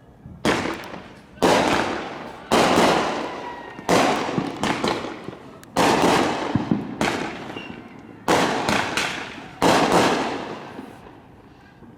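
Fireworks going off: a quick series of about eight sharp bangs, each fading out over a second or so before the next.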